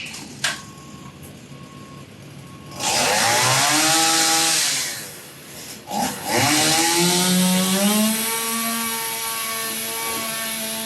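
Chainsaw cutting a notch in a log for a roof purlin: the saw revs up about three seconds in and runs hard for about two seconds, drops back, then revs up again about six seconds in and keeps running under load.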